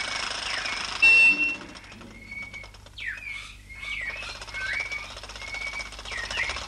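Birds chirping and twittering throughout, over the steady running noise of a small jeep's motor. About a second in comes a loud, brief sound as the rope jerks the bolt out of the crate's hasp, and the motor noise falls away, leaving the birdsong.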